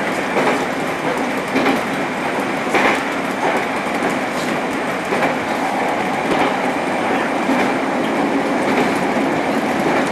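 Electric train running at speed, heard from inside the front car: a steady rumble of wheels on rails with the clack of wheels crossing rail joints about once a second.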